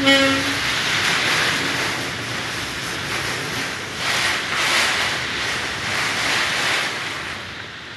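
Hurricane wind gusting in surges that swell and ease every second or two and die down near the end. There is a short pitched sound at the very start.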